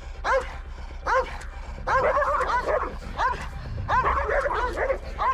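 Belgian Malinois on a leash barking repeatedly and aggressively at another dog, sharp barks about once a second that come faster and overlap around the middle. The aggression is reactive behaviour toward other dogs.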